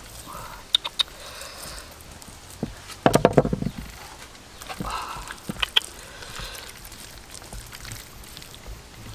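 Wet slapping and squelching as chili paste is pressed and rubbed onto a raw pork rib slab with a pestle and bare hands, with a quick run of taps about three seconds in and a few sharp clicks.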